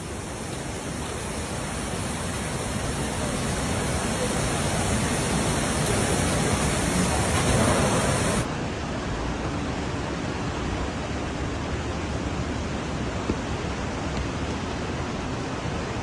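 Storm wind and driving rain, a steady rushing noise that builds in loudness over the first half. About halfway through, the highest hiss drops away and it carries on a little quieter.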